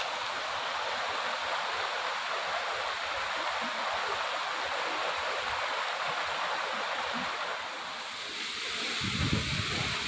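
Steady rush of a tall, narrow mountain waterfall falling onto rocks, its flow low in a dry year. A brief low rumble of wind on the microphone comes near the end.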